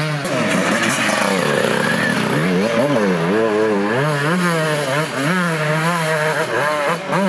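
Enduro dirt bike engine revving up and down repeatedly as the rider works the throttle through deep mud, holding a steadier high rev near the end.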